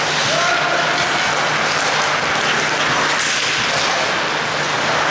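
Steady ice hockey rink noise during play, with skates scraping and cutting on the ice, swelling now and then.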